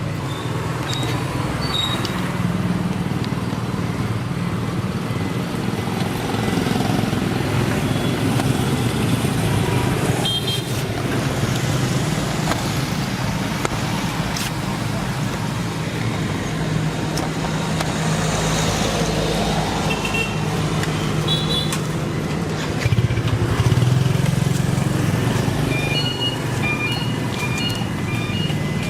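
Steady road-traffic noise with passing engines, a continuous rumble. Near the end comes a run of short high beeps.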